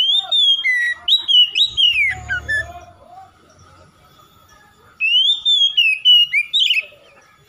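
Oriental magpie-robin singing two loud phrases of whistled notes that glide up and down. The first runs about three seconds; the second begins about five seconds in and lasts about two seconds.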